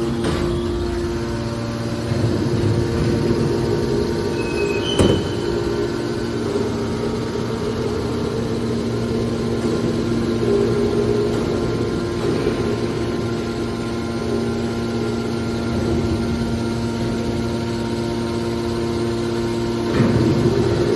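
Hydraulic car body baler running, with the steady hum of its pump motor. A sharp metallic clank comes about five seconds in, and another heavier knock comes near the end.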